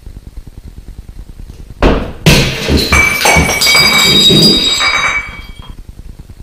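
A sudden loud crash about two seconds in, followed by about three seconds of clattering with ringing tones that fades out near the end.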